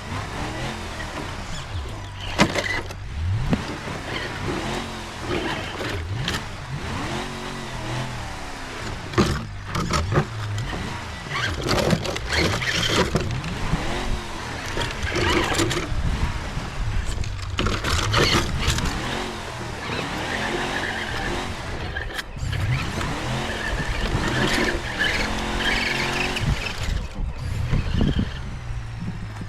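Engine sound effect of a truck revving up and falling back again and again over a steady low idle, with a few sharp knocks in between.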